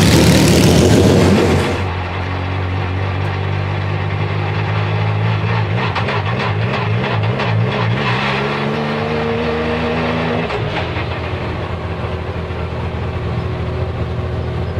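Porsche 996 GT3 RSR race car's flat-six engine running. It is very loud from outside the car for the first two seconds, then heard from inside the cockpit at low revs while rolling down the pit lane. Its pitch rises between about 8 and 10 seconds, then drops back.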